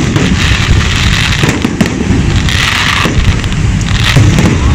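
Aerial fireworks bursting in a rapid, unbroken barrage.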